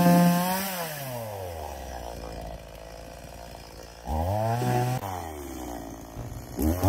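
Stihl MS170 small two-stroke chainsaw running near full throttle, then dropping to idle about a second in. It revs briefly about four seconds in and revs up again near the end.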